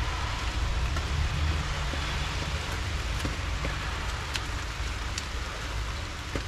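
Steady background hiss and low rumble, with a few faint clicks and taps of hands handling wire and tape among engine-bay parts.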